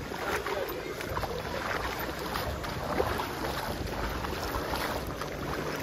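Wind buffeting the microphone over the steady wash of the sea.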